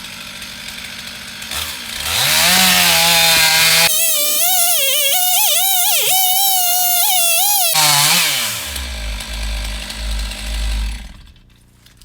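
Chainsaw cutting: the pitch climbs about two seconds in, then runs high and wavers as the chain works through the wood, and the sound drops away about eleven seconds in.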